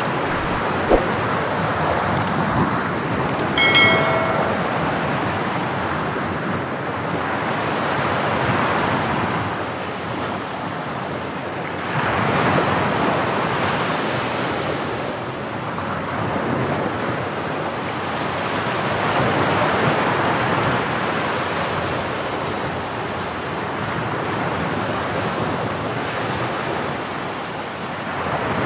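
Sea waves washing against a rocky shore, a steady rush that swells and fades every few seconds. A short high-pitched squeak sounds about four seconds in.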